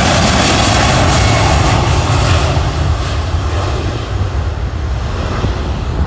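Jet aircraft engines moving away after passing by: the high whine has already faded, and about halfway through the hiss dies off too, leaving a low rumble.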